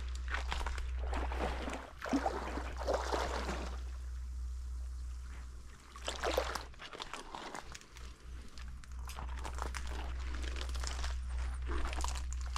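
Water sloshing and splashing irregularly as someone wades through shallow water.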